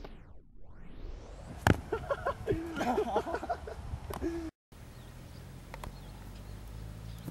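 A body thumping down as a backflip lands in a sand pit, then a man's wordless vocal sounds for a couple of seconds. The sound cuts off abruptly about four and a half seconds in, and steady outdoor background noise with a few faint clicks follows.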